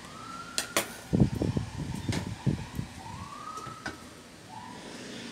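A siren wailing in the distance, rising in pitch three times, over a cluster of low bumps and a few sharp clicks from handling the fan motor on the workbench.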